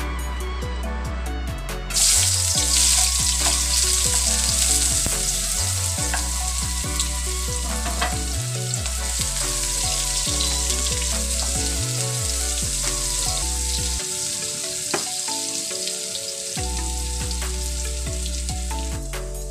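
Chopped onions sizzling in hot oil in a nonstick wok, the hiss starting suddenly about two seconds in as they go into the oil, with occasional scrapes of a wooden spatula stirring them. Background music plays under it.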